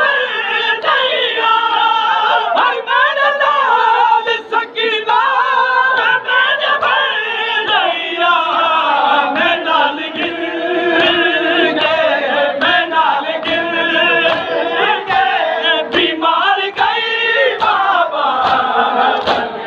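A crowd of men chanting a Muharram noha together, with sharp hand slaps on bare chests (matam) keeping time, more of them in the second half.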